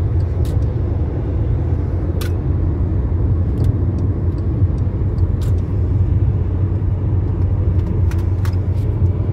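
Steady road and engine noise inside a car cabin at highway speed: a continuous low drone, with a handful of faint, sharp clicks scattered through it.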